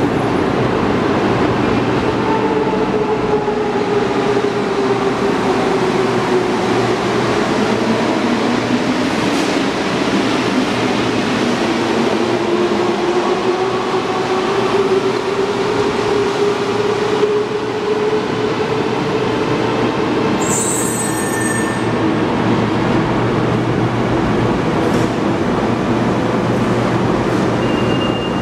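Santiago Metro Line 1 rubber-tyred metro train running through the station: a steady rumble with the whine of its electric traction equipment gliding down and up in pitch as the train moves. A short high hiss comes about two-thirds of the way through, and a steady high tone starts near the end.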